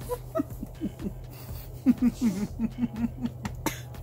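Stifled laughter through a closed mouth: a run of short, low hums that dip in pitch, three or four a second and densest about two seconds in, with a single sharp click near the end.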